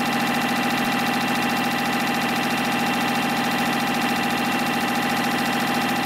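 YHM CF-310 CNC spring coiling machine running in production, coiling and cutting off 0.4 mm wire compression springs at about 830 a minute. The sound is a fast, even mechanical rhythm with a steady whine over it.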